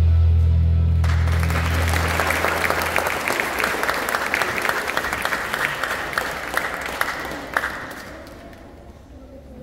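Audience clapping that starts about a second in and tapers away near the end, over the last held chord of the backing music fading out.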